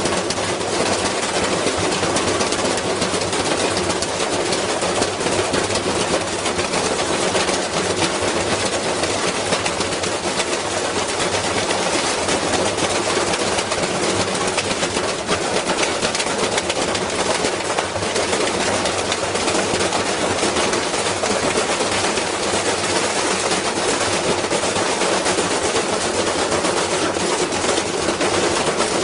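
Washing machine spinning violently with something heavy inside, giving a loud, continuous rattling and banging clatter as it shakes itself apart.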